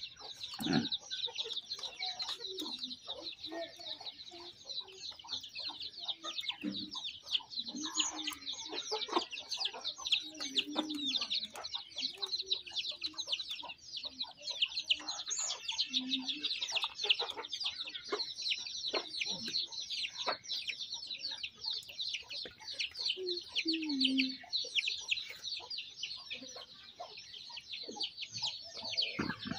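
Domestic chickens clucking now and then over a dense, continuous high chirping.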